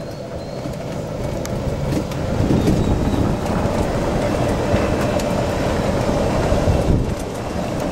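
Electric golf cart in motion: a steady rolling rumble of its tyres and body as it drives along a paved path, with no engine sound.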